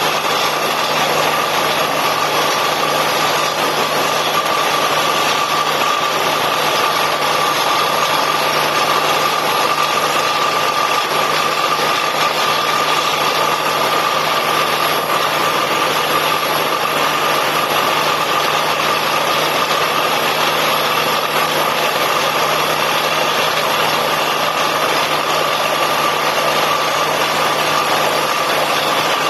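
Borewell drilling rig running steadily: a loud, unchanging engine and compressor roar with a steady whine.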